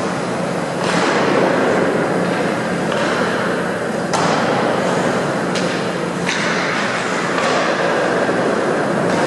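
Ice hockey play on rink ice: skate blades scraping and carving, with several sudden sharp scrapes or stick-and-puck clacks about a second in and again from four to seven and a half seconds in, over a steady low hum.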